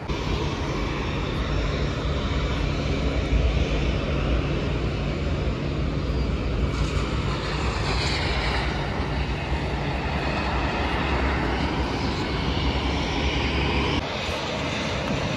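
Airliner jet engines running, a steady loud rumble with a whine that glides in pitch around the middle.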